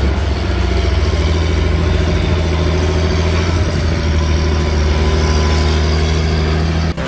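John Deere tractor's diesel engine running steadily while pulling a loaded silage trailer; the sound cuts off abruptly near the end.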